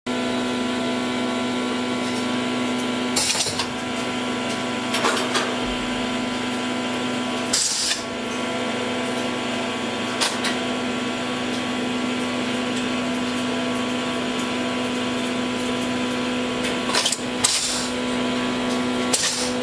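Interlocking machine levers throwing on their own, with a brief air hiss and clunk each time, about seven times. Under this runs a steady electrical hum with one strong low note.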